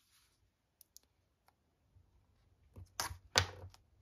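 Washi tape being handled over a paper notebook page: a few faint clicks, then a cluster of sharper taps and clicks about three seconds in.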